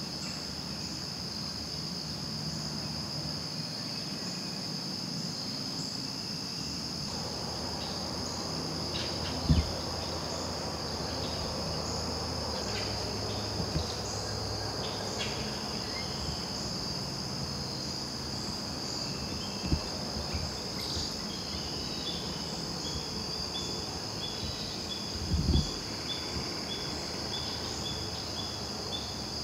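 Steady chorus of crickets and other insects, an even high trill, with a separate pulsing chirp of about two to three a second joining in the last third. A few short low thumps stand out, the loudest about a third of the way in and another near the end.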